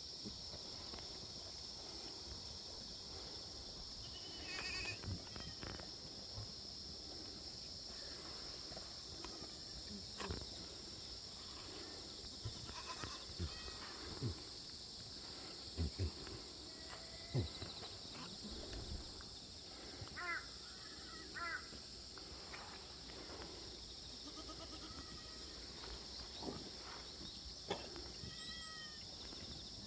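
Korean black goats bleating now and then over a steady high-pitched drone, with a few sharp knocks.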